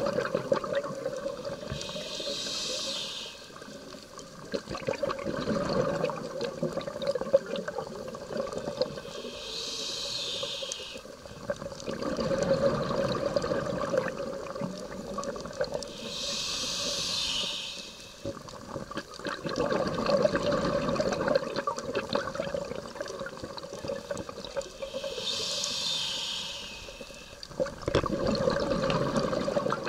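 Scuba diver breathing through a regulator underwater: four slow breaths, each a short hissing inhale followed by a longer gurgling rush of exhaled bubbles.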